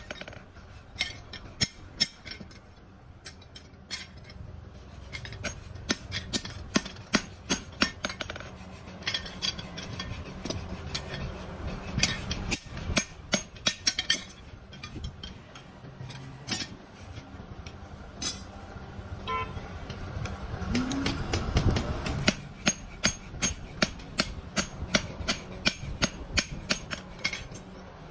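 Hammer blows on steel: a long series of sharp metallic strikes with ringing, coming in irregular runs. A low rumble swells briefly about three quarters of the way through.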